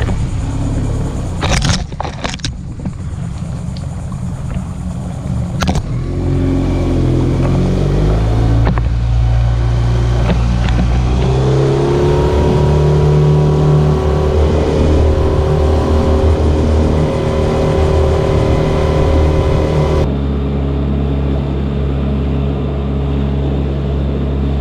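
Small outboard motor driving a micro skiff under way, its pitch climbing as the boat speeds up about six seconds in and again near twelve seconds. Two sharp knocks come in the first six seconds.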